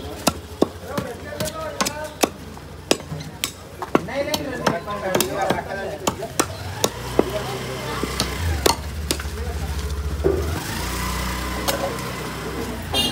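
Large knife chopping through goat legs on a wooden chopping block: sharp, irregular chops, a little more than one a second. Faint voices in the background and a low rumble that swells in the middle part.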